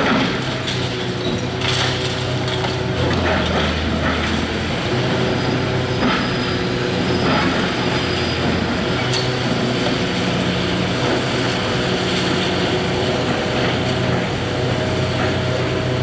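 Hitachi 670 LCH excavator's diesel engine running under changing load, its pitch shifting every few seconds, with occasional knocks and crunches of demolition.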